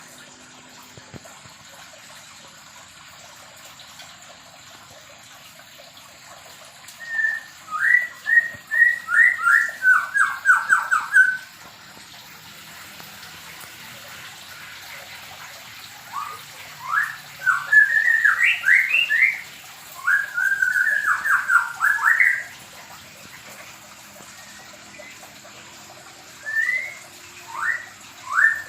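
White-rumped shama (murai batu) calling in three bouts of quick, repeated sweeping notes, about seven seconds in, again around sixteen seconds, and near the end, with quiet gaps between.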